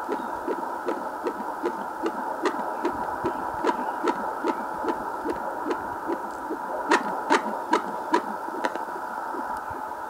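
Fetal heartbeat played through a BabyBeat fetal Doppler's speaker: rapid, regular whooshing pulses about three a second, matching a readout of about 188 beats per minute, over a steady hiss and hum. A few sharp clicks come about seven seconds in.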